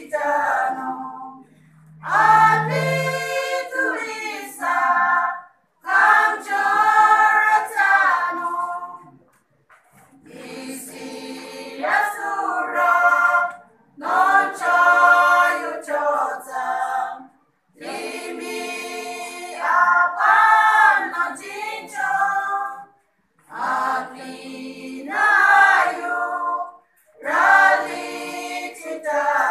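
A group of women singing together a cappella, in sung phrases of a few seconds each with short pauses between them.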